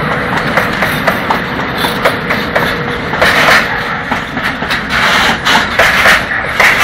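Freight train passing close by: a PKP Cargo ET22 electric locomotive followed by sliding-wall covered wagons. The wheels clatter over the rail joints, with a steady hum that stops about three seconds in.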